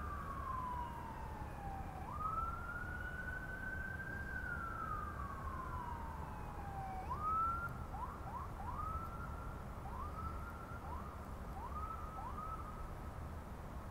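Emergency-vehicle siren wailing: a single tone that slowly falls, rises and falls again, then breaks into a run of short rising whoops from about halfway through.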